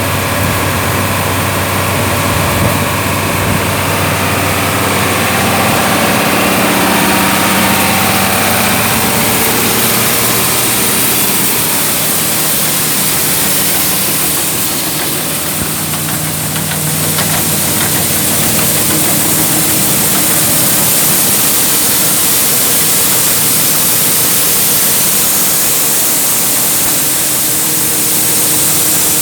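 A 58-year-old New Holland grinder-mixer running off a tractor: a steady engine drone under a loud wash of mechanical noise, easing slightly about halfway through.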